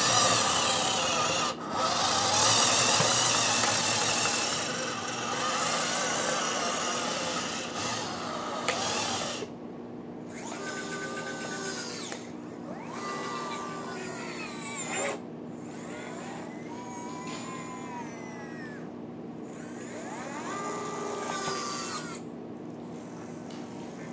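Electric drive motors and gearboxes of an RC scale bulldozer running. There is a steady grinding whir at first, then several short drives whose whine rises and falls with motor speed, separated by brief stops. The freshly painted tracks are still tight.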